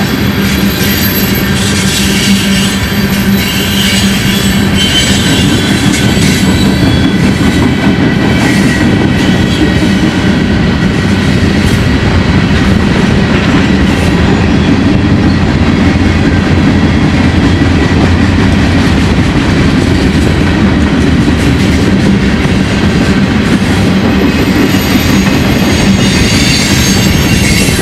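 Freight cars (tank cars, boxcars, hoppers) rolling past on the rails with a steady clatter of wheels over the rail joints, and a high wheel squeal near the start and again near the end.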